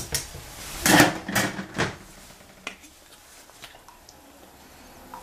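A few clattering knocks of kitchen utensils and cookware, the loudest about a second in followed by two more, then only faint occasional ticks.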